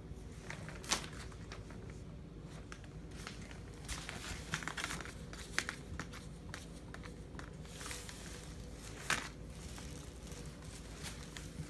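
Paper and wrapping paper rustling and crinkling faintly as a long-haired cat lies and shifts on it while being petted, with a few sharper crackles about a second in, around four to six seconds in, and about nine seconds in.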